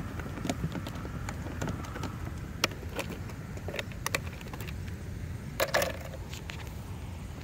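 Scattered small clicks and taps of hands handling an RC outrigger boat's hull and hatch, with a brief louder rustle about two thirds of the way through, over a steady low wind rumble on the microphone.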